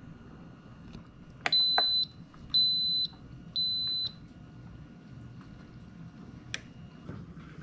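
Pampered Chef electric multicooker beeping three times, each beep long and high-pitched, as its slow-cook setting is confirmed. A couple of sharp clicks come with the first beep and another follows later.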